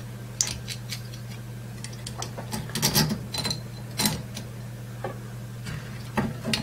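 Scattered small clicks and taps of plastic parts being handled as a hot-end cooling fan is fitted onto a 3D printer's extruder carriage, over a steady low hum.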